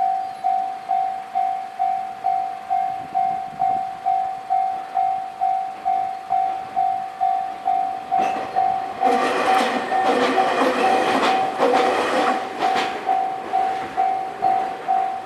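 Level crossing warning bell ringing, a single electronic tone repeating about twice a second. From about eight seconds in, a Nankai Kada Line train passes over the crossing for some five seconds, its wheels clattering over the rail joints, while the bell keeps ringing.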